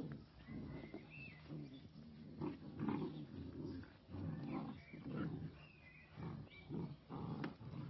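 Flat-coated retrievers play-growling while they wrestle, a run of short low growls one after another.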